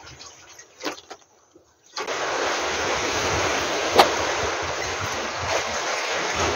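Steady wash of sea waves and wind at a breakwater, starting abruptly about two seconds in after a quieter stretch with a couple of faint knocks; a single sharp click about four seconds in.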